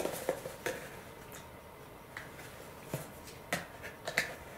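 Sparse light clicks and taps, about eight over a few seconds, from small items being handled by hand, as a paper towel is readied with rubbing alcohol.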